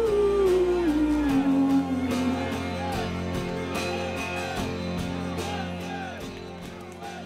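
A song with singing, guitar and a steady beat. A held sung note slides down in steps over the first couple of seconds.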